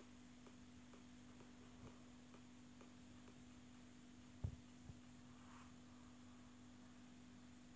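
Near silence: a faint steady hum, with two faint clicks about four and a half seconds in.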